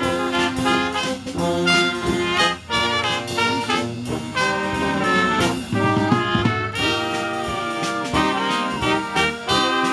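Live German oom-pah brass band playing a polka-style tune, with trumpets leading over accordion and tuba.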